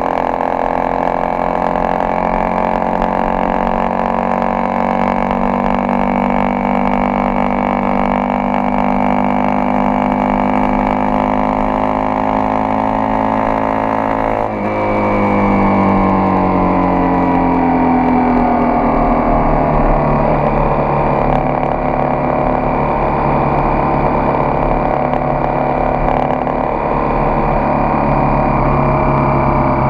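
Honda XRE 300's single-cylinder engine pulling the motorcycle along, its pitch climbing slowly as it gains speed. About 14 seconds in the pitch drops sharply at a gear change, climbs again, then holds steady at cruising speed from about 20 seconds on.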